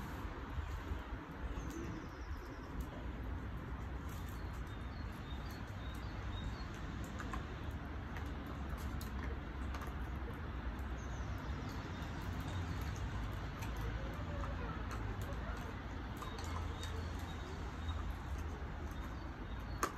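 Keeshond puppy chewing a crispy dried chicken foot, with faint irregular crunches and clicks, over a steady low outdoor rumble and occasional bird chirps.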